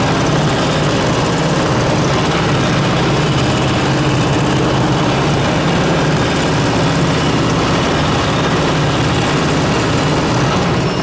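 High-speed computerized chain stitch quilting machine running steadily as it stitches a quilted panel, a continuous mechanical drone with a low steady hum.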